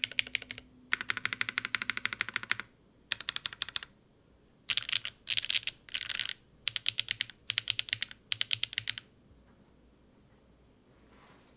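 Typing on a TKD Cycle 8 mechanical keyboard fitted with HMX Sunset Gleam factory-lubed linear switches (3.9 mm full travel), in quick bursts of keystrokes separated by short pauses. The typing stops about nine seconds in.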